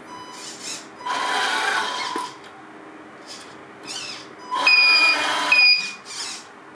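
1/10-scale RC Unimog U423 truck's electric drive motor and gearbox whining in short bursts as it is driven in small moves, with two main one-second bursts of a high, steady whine about a second in and near the end.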